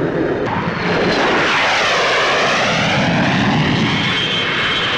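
English Electric P.1B jet fighter's Rolls-Royce Avon engines running loud as it flies past, a whine in the roar dipping in pitch and then rising again.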